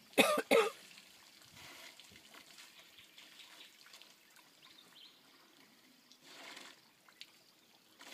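A person coughs twice in quick succession, close to the microphone. After that only faint trickling water is heard.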